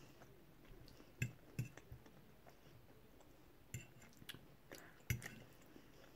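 Faint eating sounds: a metal fork tapping and scraping on a plate as it scoops up paella rice, with quiet chewing, a handful of soft separate clinks spread through.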